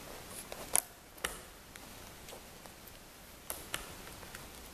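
Hands stretching rubber bands around a GoPro on a plastic drone hull: scattered light clicks and snaps, several in the first second and a half and a couple more near the end.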